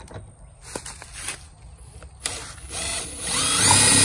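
Cordless drill pre-drilling a bolt hole through a water inlet's mounting flange into the side of a school bus. A few light clicks, then a little past halfway the motor starts and speeds up with a rising whine, running loud as the bit cuts.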